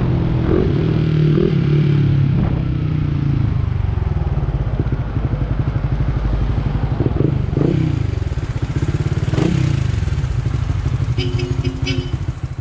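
Honda RS150/Sonic 150's single-cylinder engine on the move, its revs dropping as the bike slows, then idling in an even pulse with a few short throttle blips. A few electronic tones start near the end.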